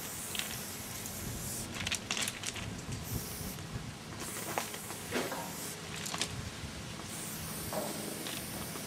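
Aerosol spray-paint can hissing in a run of bursts, some short and some a second or so long, with brief pauses between, as letter outlines are sprayed.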